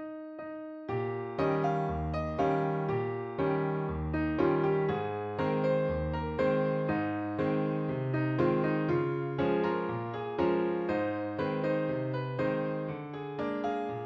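Background keyboard music: a piano-like melody with notes struck about twice a second and dying away.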